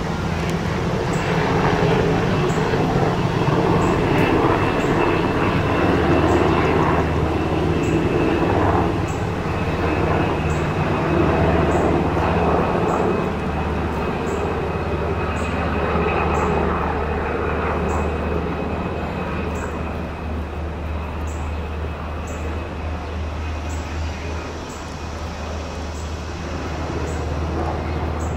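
Airplane flying overhead: a loud, steady low rumble and roar, loudest in the first half and easing off in the second.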